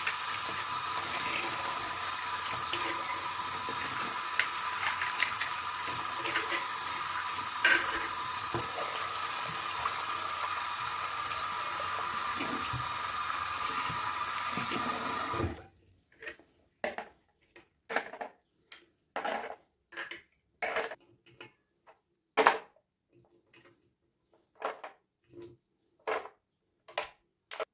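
Small plastic toy pieces and packaging being handled: short separate taps and crinkles, one or two a second. They follow a steady hiss with a faint hum and scattered clicks, which cuts off suddenly about halfway through.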